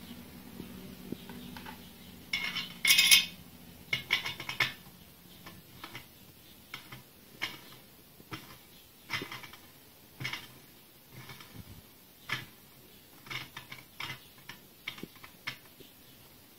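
Steel parts of a homemade cutter grinder clinking and knocking as a spacer and washers are picked up and fitted onto a bolt on the welded frame: a series of separate metallic clicks and clatters, loudest about three seconds in.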